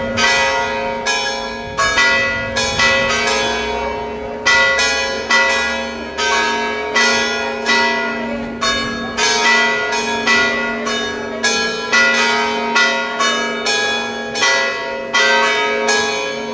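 Church bells ringing a continuous festive peal: several bells of different pitches struck in turn, about two strokes a second, each stroke ringing on into the next.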